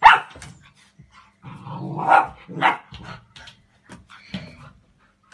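Golden retriever puppy barking: one sharp bark right at the start, two more a little after two seconds in and near three seconds, and a few fainter short yaps later.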